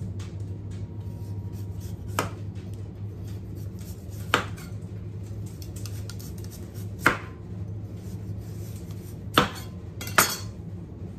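Kitchen knife slicing through a raw sweet potato and knocking on a wooden cutting board: about six sharp knocks, one every two seconds or so, with three in quick succession near the end. A steady low hum runs underneath.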